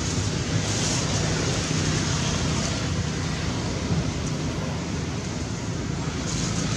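Steady rushing outdoor background noise with a low rumble underneath and no clear animal calls.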